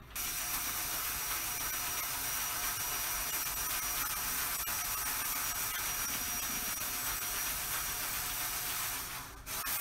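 A steady, even hiss with a faint high whine in it, starting abruptly and cutting off near the end.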